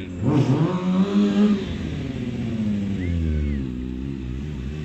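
Sport motorcycle engine revving up hard in the first second and a half, then running at a wavering, blipped throttle while the stunt rider holds the bike in a wheelie.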